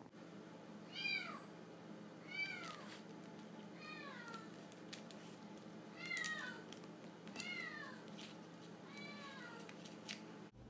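Siamese kitten meowing from another room: six faint, high-pitched meows about a second and a half apart, each sliding down in pitch.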